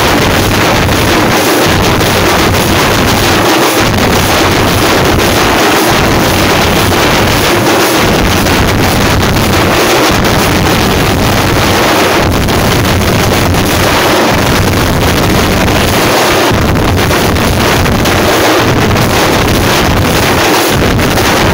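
A group of thappu frame drums beaten with sticks, loud enough to overload the recording into a continuous distorted wash with no separate strokes standing out.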